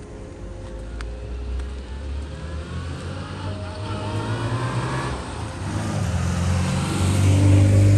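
A motor vehicle approaching, its engine rumble growing steadily louder.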